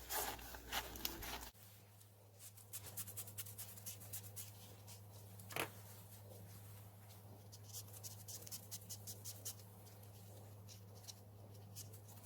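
Faint rubbing and light clicking of an alcohol-dampened cloth wiping the bead area of a rubber RC tire and its plastic wheel to clean off mold release, with one sharper click about five and a half seconds in. A low steady hum sits underneath.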